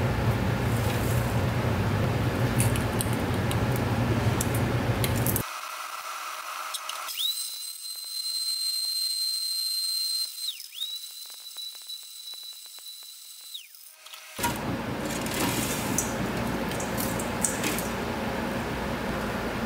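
Tabletop blender motor running as it grinds laptop circuit-board pieces, a dense noise with a low hum and sharp rattling of fragments. About five seconds in, the low sound cuts out abruptly, and a steady high whistle sounds twice, about three seconds each, before the grinding noise returns.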